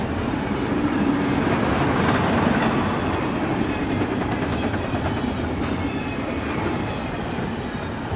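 Double-stack intermodal freight train rolling past at speed: a steady rumble of steel wheels on the rails as the well cars go by.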